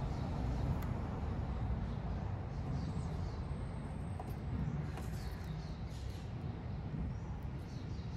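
Steady low outdoor background rumble, with a few faint crinkles and ticks of clear plastic protection film and its backing tape being peeled and handled.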